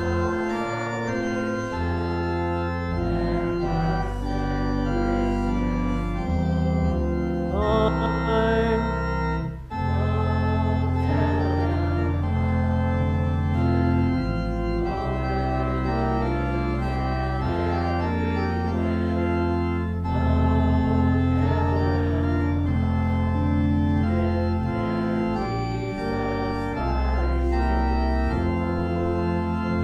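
Church organ playing held chords over a slowly moving bass line, with a brief break between phrases about ten seconds in.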